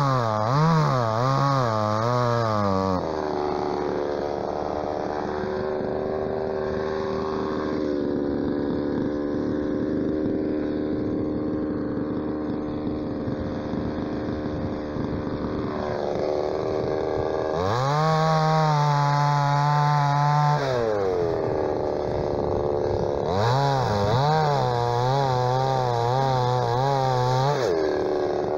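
MTX 4540 45 cc two-stroke chainsaw with a 15-inch bar and full-chisel .325 chain, bucking a birch log. It revs high with a wavering pitch, then drops to a lower, steady pitch under load in the cut for about twelve seconds. It revs high and steady again, eases off, and wavers once more near the end.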